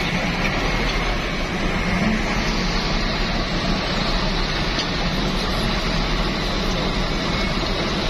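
Heavy diesel engine of a dump truck running steadily, a continuous low drone with no breaks.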